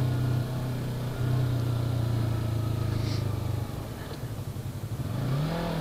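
Yamaha R3's 321 cc parallel-twin engine running at steady low revs while riding, dropping off the throttle a few seconds in, then a short rev that rises and falls near the end.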